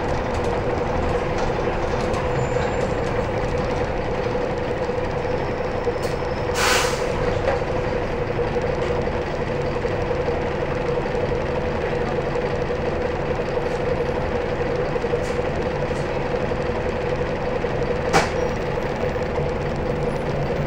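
Optare Versa single-deck bus heard from inside the cabin, its engine running with a steady drone and a constant hum. About a third of the way in comes a short hiss of released air from the air brakes, and near the end a single sharp click.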